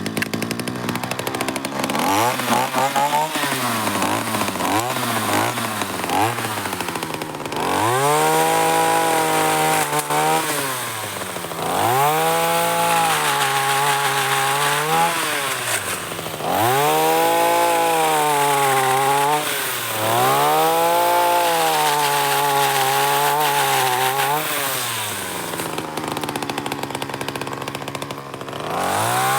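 Telescopic pole chainsaw pruning branches: the saw revs up in about five quick blips, then is held at high speed for several stretches of two to four seconds, dropping back between them, and revs up again near the end.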